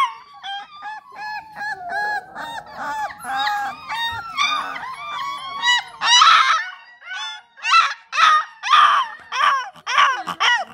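Bluetick coonhound puppies about three and a half weeks old howling: a string of high, wavering puppy howls and yelps, coming faster and louder from about six seconds in.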